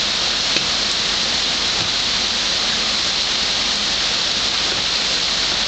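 Heavy rain falling steadily on the street and pavement in a thunderstorm.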